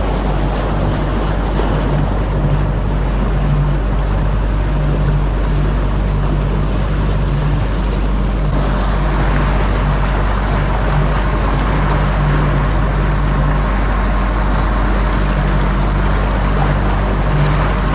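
Bass boat's outboard motor running steadily under way, with wind and water rush over it. The rush grows brighter about eight and a half seconds in.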